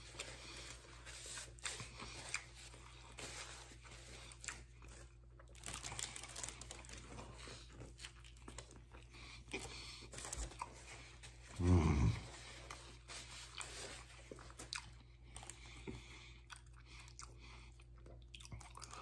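A person chewing and crunching a sub sandwich close to the microphone, with small crackles of a paper napkin or wrapper. About twelve seconds in comes a short, low voiced sound falling in pitch.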